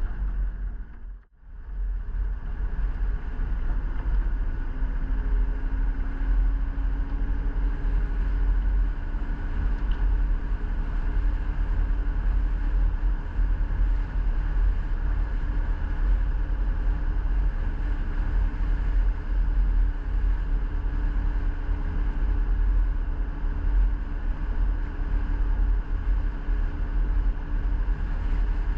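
A motor vehicle driving: a steady engine and road rumble with a brief dropout about a second in.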